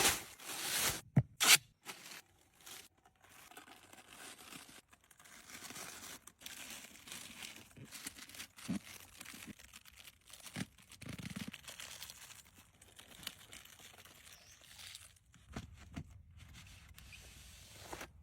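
Scattered tearing and crinkling handling sounds, with a few sharp clicks in the first two seconds.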